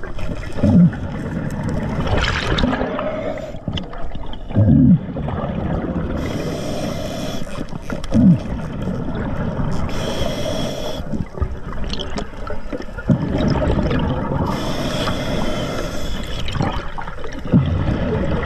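Scuba diver breathing through a regulator underwater, in a slow, even cycle. Each inhale is a high hiss and each exhale a low gurgling rumble of bubbles, with one breath every four to five seconds.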